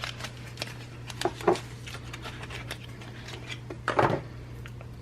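Small clicks and light rustles of a mascara tube and its packaging being handled and opened, with a louder handling noise about four seconds in, over a steady low hum.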